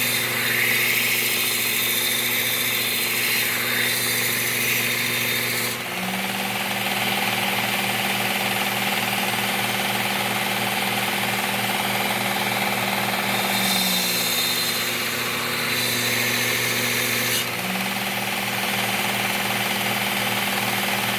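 Work Sharp Ken Onion Elite belt sharpener running steadily while the edge of a steel mulching mower blade is ground on its abrasive belt. The grinding tone changes at about six seconds, again around fourteen seconds and near the end.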